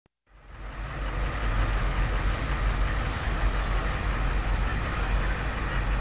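Bus engine running with a steady low rumble, fading in over the first second.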